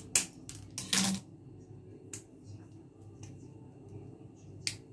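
Steel scissors snipping and cracking at the hard, horned shell of a water caltrop (ling kok). There are a handful of sharp clicks and crunches; the loudest and longest comes about a second in, and lighter snips follow.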